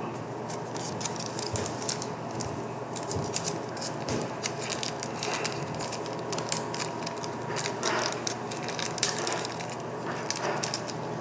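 Small clicks, ticks and light crinkling from hands handling small Glock 43 magazine parts and tools, scattered irregularly over a steady low hum.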